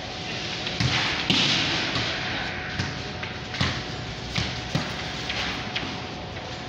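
A basketball bouncing on a concrete floor: a string of irregular thuds.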